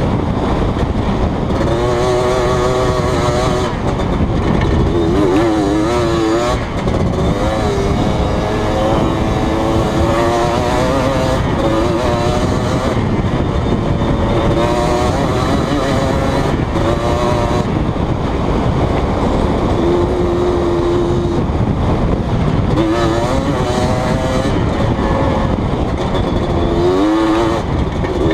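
Yamaha Blaster's 200 cc two-stroke single-cylinder engine under way, its note rising and falling again and again as the throttle is worked, over a dense low rumble.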